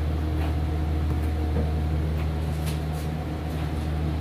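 A steady low mechanical hum with several steady overtones, and a few faint clicks.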